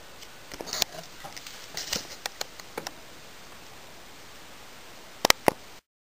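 Candy front-loading washing machine on a delicate silk cycle: a quiet steady hiss with scattered light patters and clicks from the water and drum. Near the end come three sharp clicks, then the sound cuts off.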